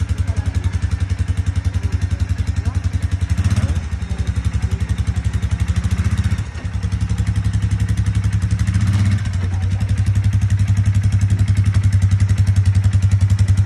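Polaris ATV engine idling with a steady, fast pulse. Its note shifts briefly about three and a half seconds in and again around nine seconds, and dips for a moment a little past six seconds.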